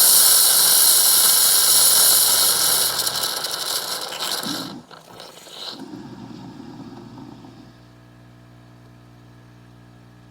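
Bosch built-in coffee machine making a latte macchiato: a loud steam hiss, the milk being frothed, dies away about four to five seconds in. After a few clicks, a quieter steady mechanical hum follows.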